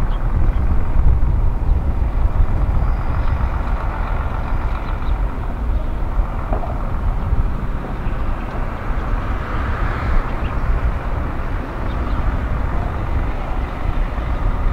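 Heavy tractor unit's diesel engine running at low revs as it slowly tows a lowboy trailer loaded with a railcar. A steady low rumble.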